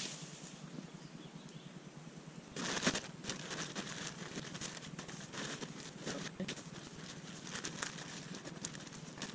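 Plastic tarp crinkling and rustling as it is shaken out and draped over a pole, starting suddenly about two and a half seconds in and going on in irregular crackly bursts.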